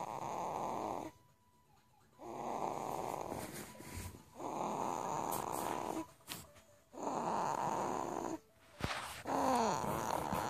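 A young boy snoring heavily: about five long snores in a steady rhythm, each lasting about a second and a half, with short quiet gaps for the in-breath between them.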